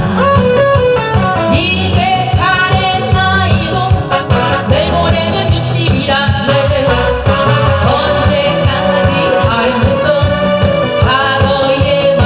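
A woman singing live into a handheld microphone over a loud recorded backing track with a steady beat, played through a PA system.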